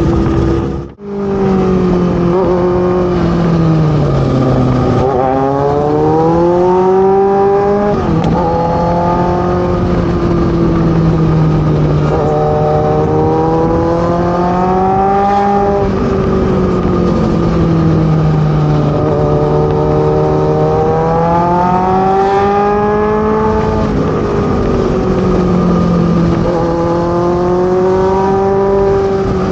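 Kawasaki Z900's inline-four engine through a loud full-system exhaust, revving up through the gears: the pitch climbs several times and drops sharply at each shift, between stretches of steady cruising. The sound briefly cuts out about a second in.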